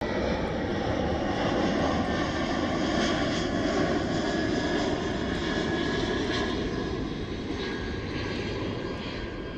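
Airplane engine running steadily, a dense even noise that slowly fades over the last few seconds.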